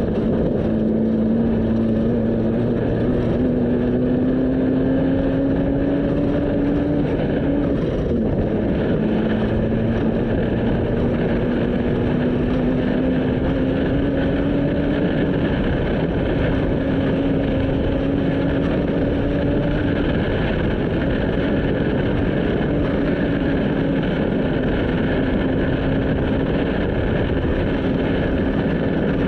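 Off-road race vehicle's engine running hard at a steady, high note that creeps slowly upward, drops suddenly about eight seconds in, then climbs slowly again, over a constant rushing noise.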